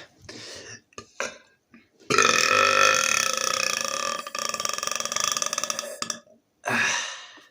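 A man burping on purpose: a few brief sounds at the start, then one long, loud, pitched burp from about two seconds in lasting some four seconds, and a shorter burp near the end.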